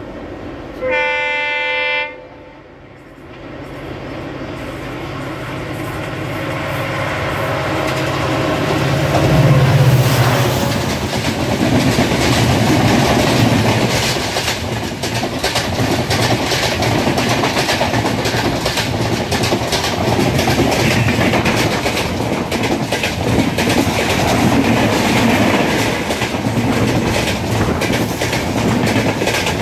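A single train horn blast about a second long. Then an express train approaches on the adjacent track, its rumble building to its loudest as the locomotive passes about ten seconds in. Its passenger coaches then roll past close by, wheels clattering steadily over the rail joints.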